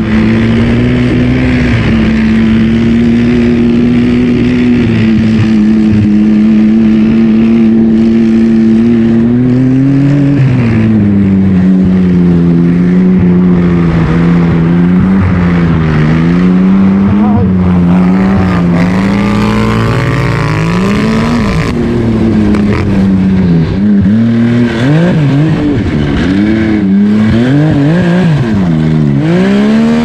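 Yamaha Sidewinder snowmobile's turbocharged engine running at a steady speed for about ten seconds, then revved up and down over and over as the throttle is worked.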